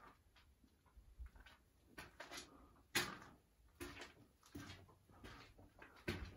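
Footsteps on a gritty, dusty floor, a step about every two-thirds of a second, with one sharper scuff about three seconds in.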